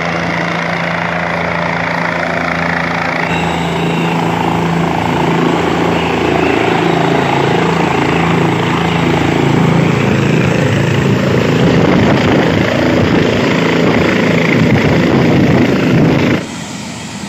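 Helicopter coming in to land, its engine and rotor running loud: a steady low hum under a rushing noise that builds as it nears the ground. The sound breaks off sharply near the end.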